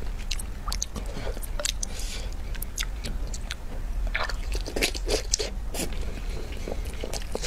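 Close-miked mouth sounds of eating spicy noodles and tofu with chopsticks: biting and chewing, with many short mouth clicks throughout, over a steady low hum.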